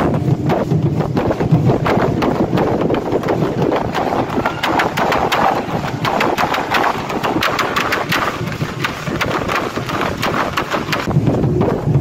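Dense, irregular rattling of many dancers' ankle rattles (ayoyote seed-shell rattles) shaking as the group moves, over a low crowd murmur. The clicking is thickest about midway.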